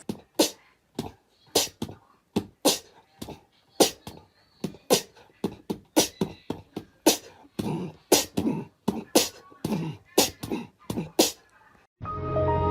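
A rapid, irregular run of sharp clicks, about two to three a second, that stops about a second before the end, when music comes in.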